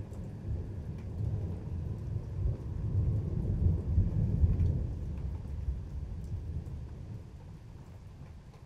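A roll of thunder: a deep rumble that builds, peaks about four seconds in and fades away near the end. Light rain with scattered drip ticks runs underneath.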